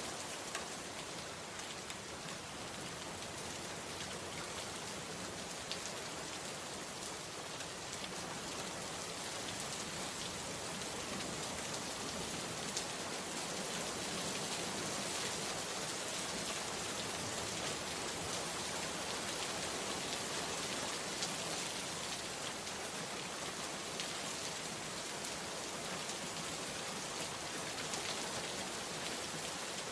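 Steady rain falling, an even hiss with scattered drops ticking, growing a little heavier after about ten seconds.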